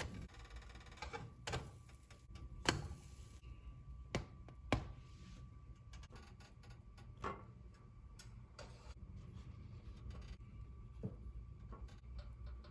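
A handful of irregular sharp clicks and knocks over a low steady hum; the loudest knock comes a little under three seconds in.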